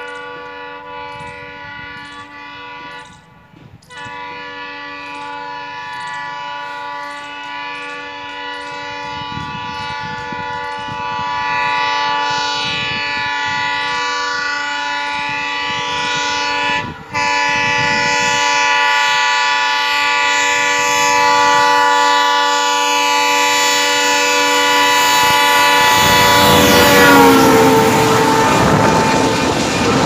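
Indian Railways freight locomotive's horn sounded almost without pause as it approaches on the next track, growing louder, with two short breaks. About 27 seconds in its pitch drops as the locomotive passes, and the loud rushing of its wagons running close alongside the moving passenger train follows.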